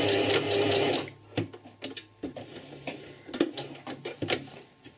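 Domestic sewing machine running with rapid needle strokes as it finishes a seam, stopping about a second in. Then scattered light clicks and taps follow.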